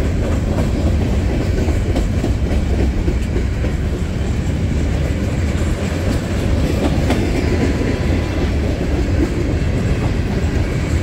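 Freight train cars rolling past close by: a steady rumble of steel wheels on rail, with wheels clacking over the rail joints.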